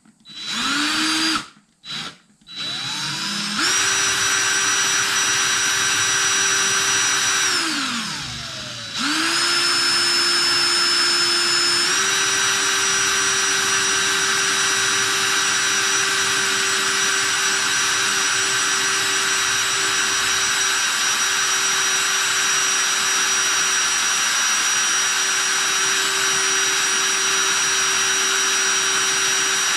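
DeWalt cordless drill spinning a brass cartridge case in a case holder for polishing. There are a few short trigger blips, then a steady motor whine. The whine winds down about eight seconds in, starts again, steps up in speed about twelve seconds in and then runs steadily.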